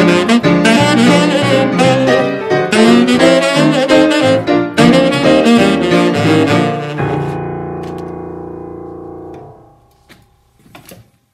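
Tenor saxophone and upright piano playing the closing bars of a traditional New Orleans jazz tune together. About seven seconds in the saxophone stops, and a final piano chord is left ringing and fades away over a couple of seconds. A few faint clicks follow near the end.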